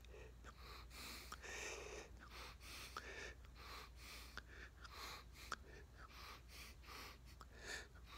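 Faint, short breaths in quick succession while blowing up a large bubblegum bubble, with a few small clicks.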